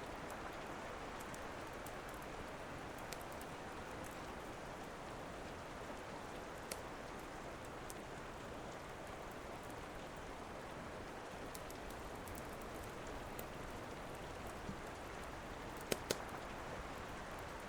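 Steady rain, with now and then a sharp pop from a crackling wood fire: one about a third of the way in and two in quick succession near the end.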